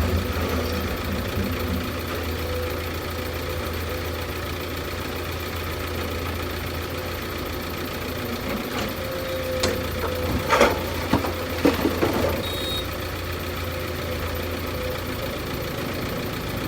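A heavy machine's engine running steadily at a low idle, with a few sharp clanks about ten seconds in.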